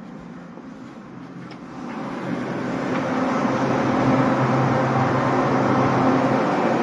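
Steady rush and hum of a cruise ship's machinery on its open top deck. It grows louder over the first three seconds, then holds steady.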